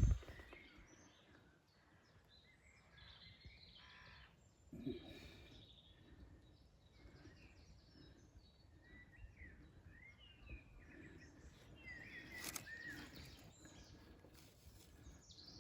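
Faint wild birdsong, scattered short chirps and warbling notes, over quiet outdoor background noise, with a couple of soft knocks about five and twelve seconds in.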